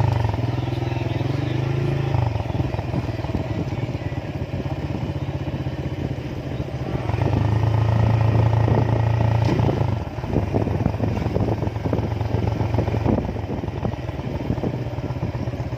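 Motorcycle engine running while riding, with a steady low hum that gets louder for about three seconds near the middle, then eases back.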